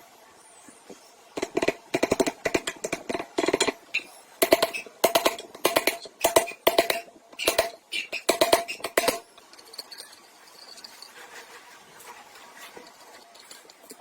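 A hammer striking a metal part in rapid runs of blows, each with a short metallic ring. The blows go on for about eight seconds, then stop.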